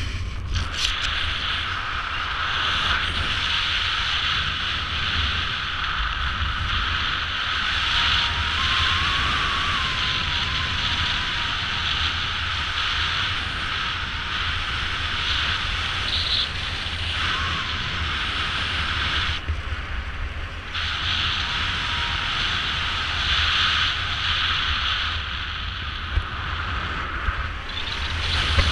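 Air rushing over an action camera's microphone during a parachute descent: steady wind noise with a low buffeting rumble, the hiss easing briefly about twenty seconds in.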